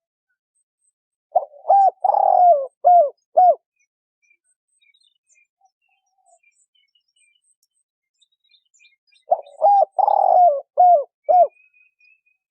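Spotted dove cooing twice, the two phrases about eight seconds apart. Each phrase is a few short coos around one longer drawn-out coo, ending on two quick notes.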